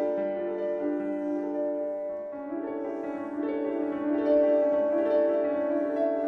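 Instrumental music: a repeating figure of held notes, with the harmony shifting about two seconds in.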